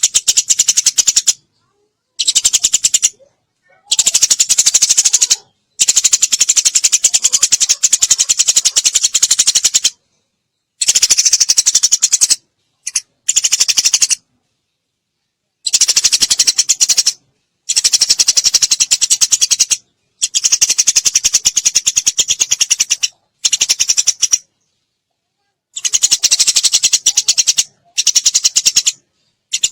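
Eurasian tree sparrow giving rapid-fire chattering chirps, the fast 'tembakan' call, in runs of one to four seconds broken by short silent gaps.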